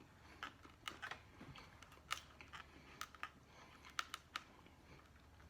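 Faint, irregular wet clicks and smacks of a person chewing a mouthful of pizza, about seven in a few seconds.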